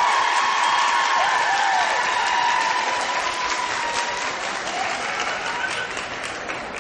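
Audience applauding, with cheering calls over the clapping early on; the applause gradually dies away.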